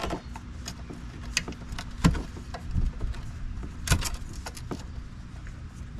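Irregular metallic clicks, clinks and knocks of hand tools and parts being handled during repair work under a car, with the loudest knocks about two and four seconds in.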